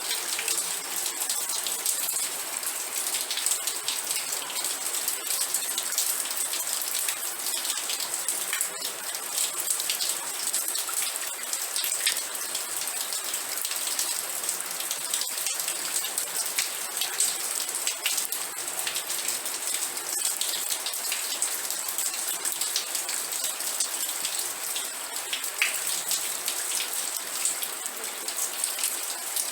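Steady rain, with a dense hiss and many separate drop impacts ticking close by.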